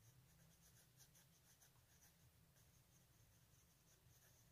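Faint scratching of a coloured pencil on paper in quick, repeated short strokes, shading.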